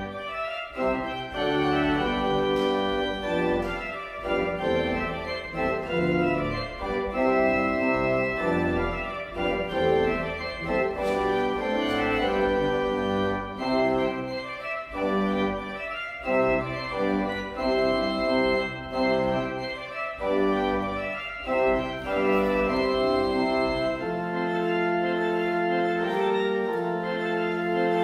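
Church organ playing a postlude: a run of changing chords, settling about 24 seconds in into a held chord over a sustained low pedal note.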